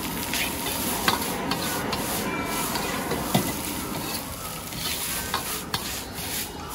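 Fried rice sizzling in a wok with a steady hiss, while a metal ladle and spatula scrape and clack against the wok several times as the rice is stir-fried.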